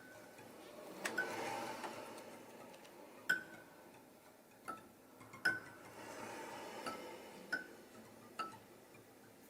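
Sparse, irregular sharp taps, each with a brief high ringing note, over a faint hiss: double basses played percussively as sound effects.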